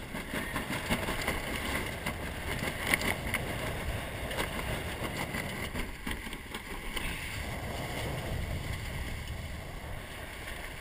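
Water rushing and splashing along the hull of a 470 sailing dinghy moving fast under sail, with wind buffeting the microphone. There are a few sharper splashes.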